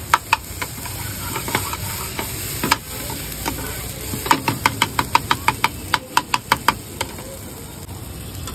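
Spatula knocking and scraping against the pan while stirring a frying onion-tomato masala, with a steady sizzle underneath. Separate taps at first, then a quick run of about a dozen taps, roughly five a second, a little past the middle.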